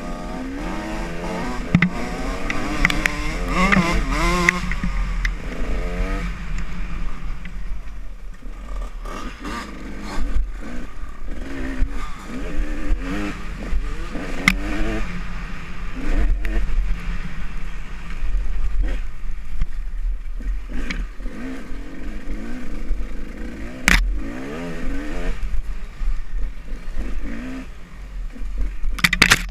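Off-road dirt bike engine revving up and down as the throttle is worked over rough singletrack, with a steady low rumble of wind on the microphone. A few sharp knocks from the bike hitting bumps, the loudest about 24 seconds in and another near the end.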